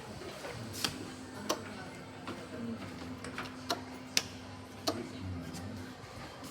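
A few sharp, irregular clicks, five in all, over a steady low hum that stops shortly before the end.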